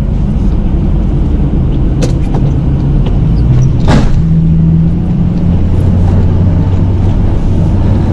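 Snow plow pickup truck's engine running steadily while plowing, its low pitch rising for a moment about four seconds in and settling again, with two short clicks around two and four seconds in.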